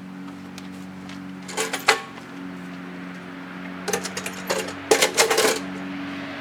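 Metal tools or bike parts being handled, clinking and rattling in two bursts: a short one about a second and a half in and a longer one near the end. A steady low hum runs underneath.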